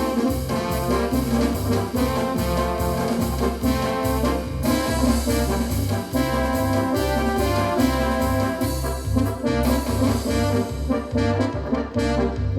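Yamaha DX7 FM synthesizer playing a brass-like patch: sustained chords over a pulsing, repeating bass line.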